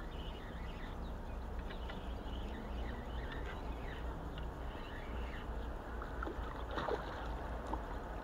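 Steady low rumble and hiss of outdoor background noise, with a few faint clicks near the end as the spinning rod and reel are handled and cast.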